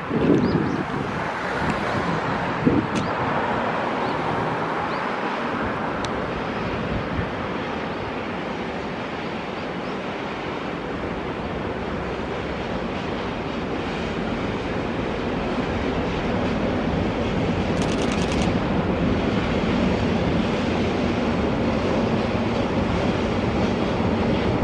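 Freight train led by two electric locomotives with loaded covered hopper wagons, approaching on a curve: a steady rumble of wheels on rail with a low locomotive hum that grows louder towards the end, with wind noise on the microphone.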